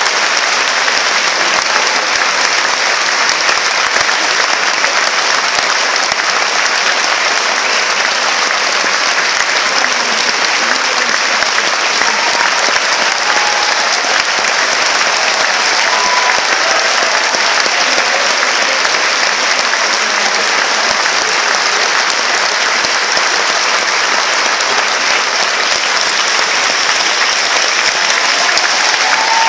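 Theatre audience applauding steadily and without a break during a ballet curtain call.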